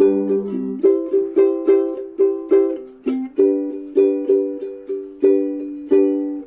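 Ukulele strumming chords at about three strums a second, changing chord a few times. The last chord rings out and fades near the end.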